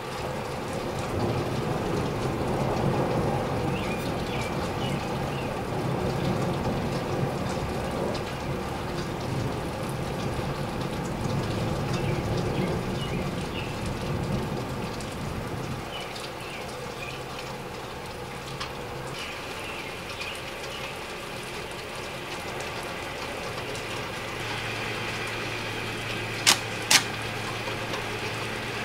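Rain and a long, rolling rumble of thunder, muffled through a hotel window. The rumble eases about halfway through, leaving steady rain hiss and a low hum, and two sharp clicks come close together near the end.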